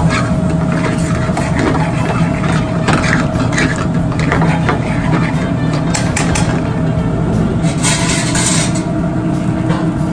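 Steady low drone of a commercial kitchen's gas range and ventilation. Metal tongs clink and scrape in a sauté pan several times, with the longest scrape about eight seconds in.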